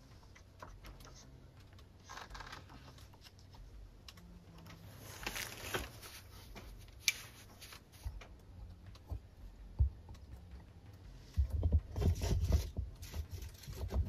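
Scraping, rustling and small knocks as a rifle is handled and brought to rest on the window ledge of a wooden hunting blind. There is a sharp click about seven seconds in, and heavier bumps and rubbing near the end.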